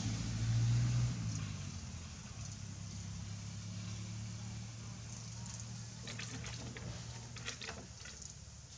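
Steady low hum of an engine running, loudest in the first second, with a few short clicks and rustles in the last few seconds.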